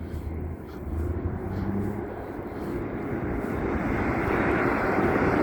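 A loaded dump truck approaching along the road, its engine and tyre roar growing steadily louder.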